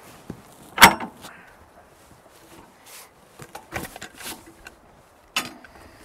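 Knocks and clanks of a steel cant hook biting into a log and the log bumping on the sawmill's steel track as it is rolled over: one loud sharp knock about a second in, a cluster of lighter knocks in the middle, and another sharp knock near the end.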